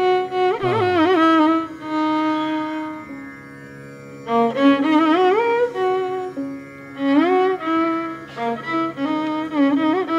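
Instrumental music in a Carnatic style: a melody with sliding, wavering ornaments over a steady drone. The melody drops away for about a second, three to four seconds in, then resumes.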